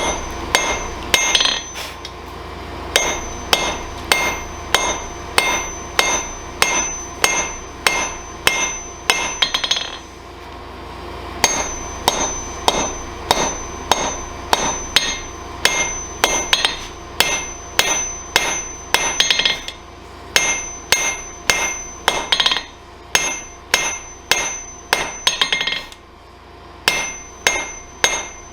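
Hand hammer striking a hot wrought-iron railroad spike on an anvil, drawing out the point: a steady run of blows about two a second, each with a short metallic ring, with two brief pauses. A low steady hum runs underneath.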